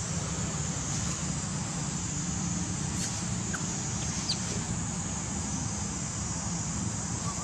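Steady outdoor background hiss with a low rumble, and a couple of faint, brief chirps about halfway through.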